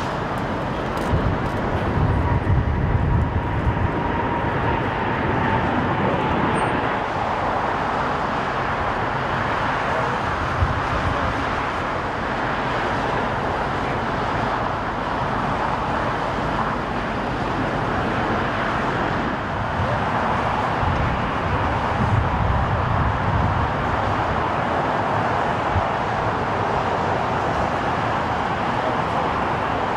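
Jet airliner engines at an airport, a steady rushing roar with occasional low rumbles. A faint thin whine, falling slightly in pitch, fades out after about six seconds.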